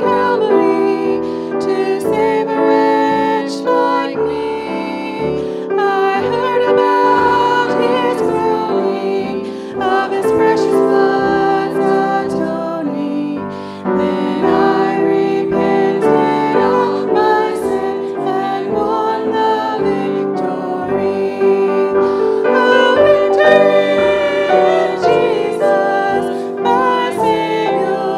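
A church choir singing a hymn, with female voices at the front and piano accompaniment.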